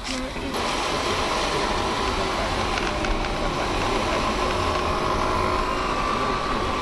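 Steady road and engine noise inside a moving car's cabin, a low rumble with faint steady tones in the background.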